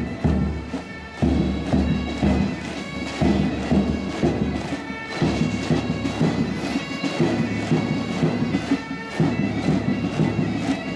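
Bagpipes of a pipe band playing a march, with steady held drone and chanter tones over a regular low beat.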